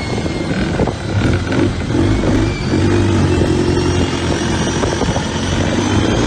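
Isuzu 4JJ1 turbo-diesel engine of a modified longtail racing boat running hard at a steady pace, with a thin high whine that slowly rises in pitch.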